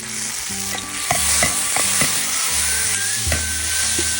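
Garlic and chopped chilli sizzling in hot rapeseed oil in a pan, stirred with a spatula that knocks and scrapes against the pan several times. The sizzle grows louder about a second in.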